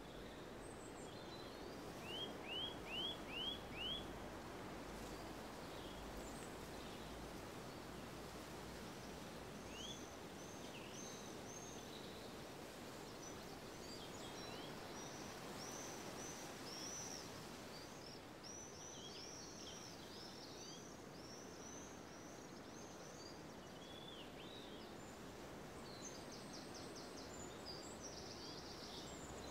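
Outdoor ambience: a steady low hiss of background noise with small birds calling, a run of five quick sharp notes about two seconds in, then scattered high chirps through the middle and a short buzzy trill near the end.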